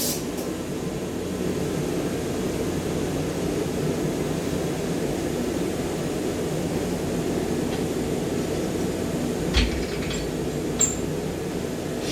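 Steady low drone of workshop machinery, with two short sharp clicks near the end.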